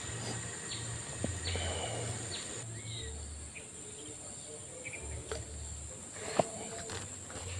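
Insects buzzing in a steady high-pitched drone, with a few faint clicks and one sharp click about six seconds in.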